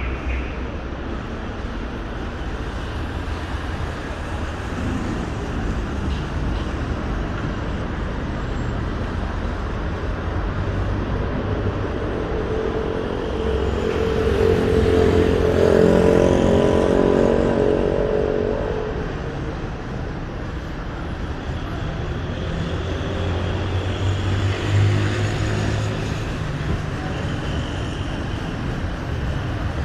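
Steady road traffic of cars passing. About halfway through, one louder vehicle's engine swells and passes, then fades, with a smaller rise in traffic noise near the end.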